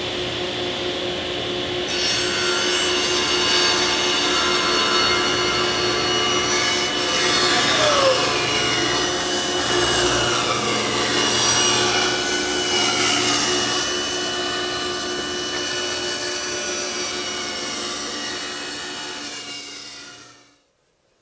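Table saw with its blade tilted to about 60 degrees, cutting a long chamfer along the edge of a maple board. The blade bites into the wood about two seconds in and keeps cutting as the board is fed along the fence, then the sound cuts off suddenly near the end.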